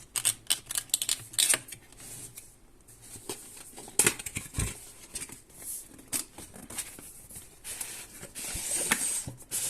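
Cardboard graphics-card box being handled and worked open: rustling, scraping and clicking of cardboard, a knock about four seconds in, and a longer scraping hiss near the end as it slides.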